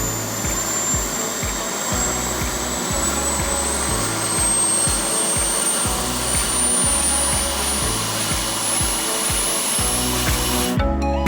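Background music with a steady beat under a hissing build-up and a slowly rising whine, which gives way to a new section with a clearer melody near the end.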